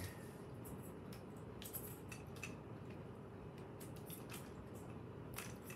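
Faint, scattered small clicks and scrapes from handling the opened robotic toy fish's plastic parts and styrofoam, with a few clicks close together near the end.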